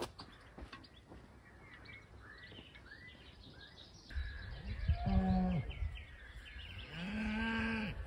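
Two drawn-out livestock calls: a shorter one about five seconds in and a longer, steadier one near the end. A low rumble runs under them and faint bird chirps come before them.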